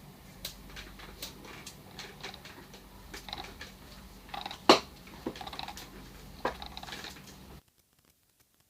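DJI drone motor making a grinding noise: irregular scratchy clicks and crackles over a steady low hum, with one sharp loud click just under five seconds in. The sound cuts off suddenly near the end.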